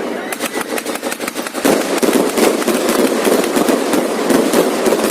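Fireworks going off in a rapid, continuous barrage of sharp bangs and crackles.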